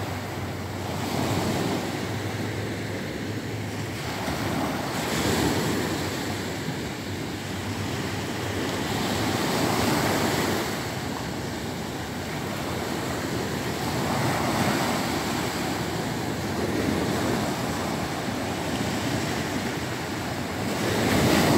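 Small sea waves breaking and washing up a sandy beach, the surf swelling and easing every four to five seconds.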